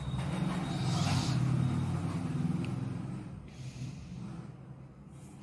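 A low rumble that swells over the first second or two and fades out by about three seconds in, with a pen scratching faintly on paper as a coil is drawn.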